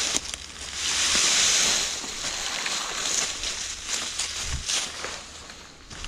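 Footsteps wading through a deep layer of dry fallen leaves and twigs: a continuous rustling crunch, loudest about a second in, then lighter steps that ease off near the end.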